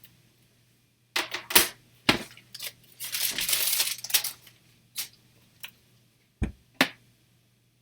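Hard plastic CGC graded-comic slabs clacking and knocking as they are handled and set down: a cluster of sharp clacks, a rustle lasting about a second, then two more knocks near the end.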